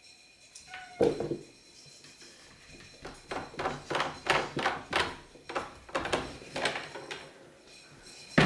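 Glass-panelled wooden double door knocking and rattling in its frame as a cat paws and pushes at it to open it. One loud thump about a second in, then a quick run of knocks, about three a second, and another sharp knock at the end.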